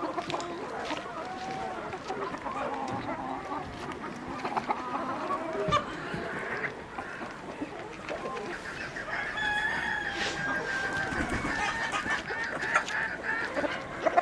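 A flock of free-range chickens clucking, with a rooster crowing.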